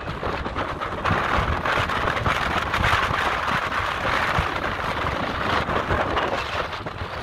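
Wind buffeting the microphone in uneven gusts over the steady rush of ocean surf breaking on rocks.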